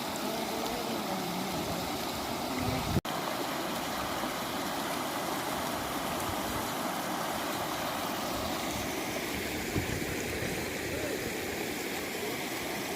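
Floodwater rushing across a road in a strong current: a steady, even roar of water, broken by a brief cut about three seconds in.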